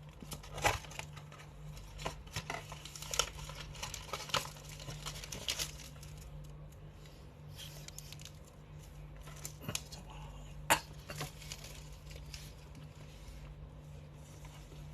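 Paper and wrapper packaging being crinkled and torn open in irregular rustles and sharp crackles, busiest over the first six seconds, with one loud crackle near eleven seconds. A steady low hum sits underneath.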